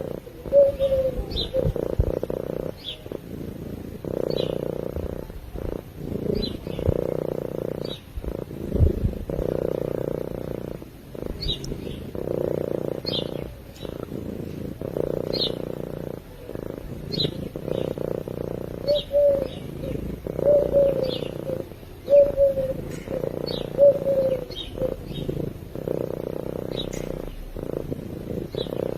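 A sleeping cat purring steadily in slow, rising-and-falling pulses, with short high bird chirps about once a second over it.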